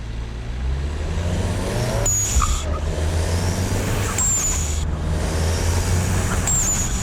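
Turbocharged 2.0-litre four-cylinder of a VW Golf GTI Mk7 accelerating hard, its pitch rising, with the Forge Motorsport blow-off valve venting boost in a loud hiss three times as the throttle is lifted for gear changes, about two, four and six and a half seconds in.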